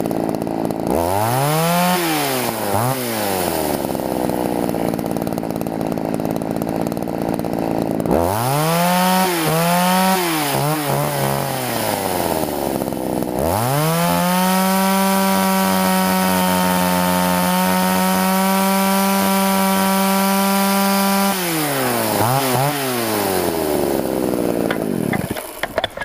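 Poulan two-stroke chainsaw idling and being revved up and down while its carburetor's high-speed mixture screw is adjusted. Several quick blips of the throttle, then about seven seconds held at full revs on a steady pitch, then back to idle, a couple more blips, and the engine stops near the end.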